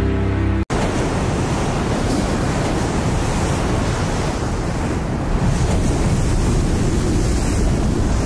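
Ocean surf: a steady rush of breaking, churning white water. It begins abruptly about a second in, when music cuts off.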